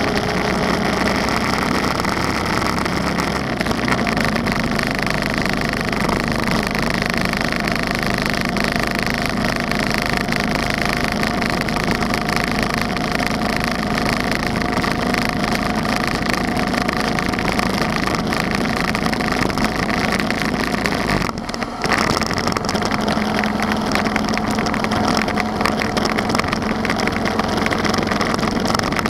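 Motorcycle engine and wind noise at a steady cruising speed, picked up by a camera mounted on the bike. The engine note rises slowly, and the level dips briefly about three-quarters of the way through.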